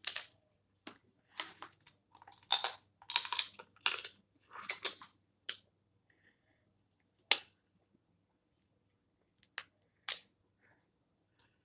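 Snow crab leg shells being cracked and snapped apart by hand. A close run of sharp cracks and crunches fills the first five seconds or so, then a few single snaps come seconds apart.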